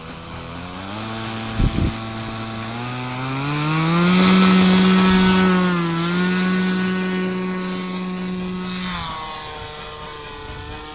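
An RC paramotor's propeller motor heard from on board, throttling up for the takeoff run: its pitch climbs over the first four seconds and holds high at full power, with two short knocks about two seconds in. About nine seconds in the throttle is eased back and the pitch drops.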